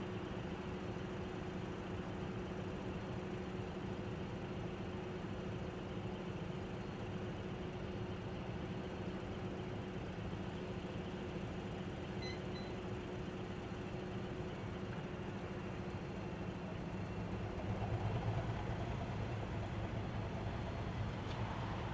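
Diesel engines of two coupled shunting locomotives idling steadily, then throttling up about eighteen seconds in as the locomotives start to move off.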